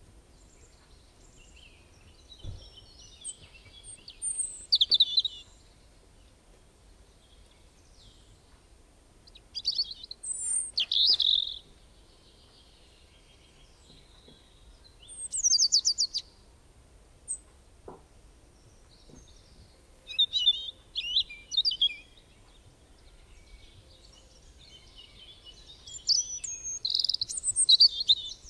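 Songbirds singing: short phrases of high, quick chirps, about five of them, each a second or two long and spaced five or six seconds apart.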